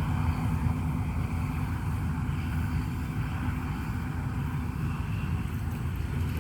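Rice combine harvester's engine running steadily: a constant low rumble with a faint steady hum.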